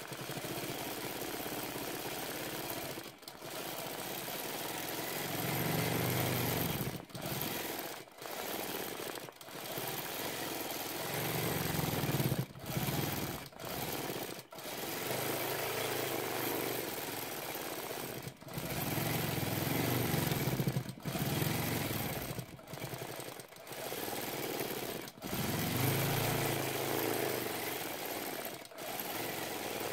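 Longarm quilting machine stitching freehand, a rapid steady chatter of the needle that stops briefly every few seconds and swells in stretches as the machine is moved faster and slower.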